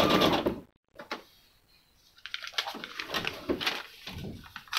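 Electric sewing machine stitching through vellum and paper with a fast, even needle rhythm, stopping about half a second in. After a short pause, the sewn vellum piece is handled, with irregular rustling and light clicks.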